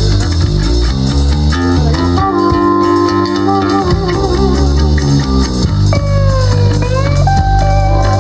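Rock band playing live: electric guitars, electric bass and drum kit with a steady beat. About six seconds in, a held note bends down and back up.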